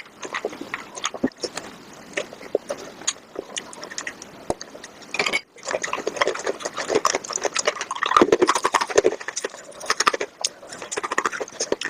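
Close-miked eating sounds sped up about five times: a rapid, dense run of wet chewing, crunching and mouth clicks, broken by a brief gap about halfway through.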